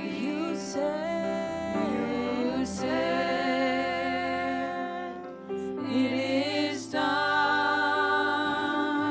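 Slow worship music: sustained keyboard chords under a sung melody with held, wavering notes.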